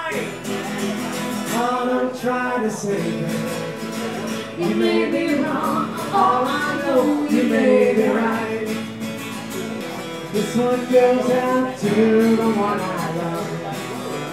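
Live acoustic duo: two acoustic guitars strummed together, with a voice singing in places.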